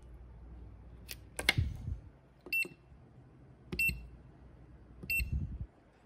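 Two sharp knocks about a second in, then three short electronic beeps about 1.3 s apart as the buttons of a Hyperion EOS 0606i hobby battery charger are pressed to change its charge-current setting.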